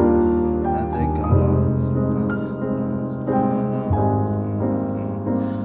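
Instrumental music led by a grand piano played four-handed: held chords over long bass notes that change twice.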